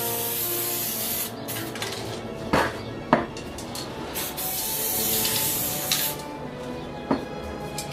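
Aerosol spray paint can hissing in spurts, with a few sharp knocks or clinks, over background music.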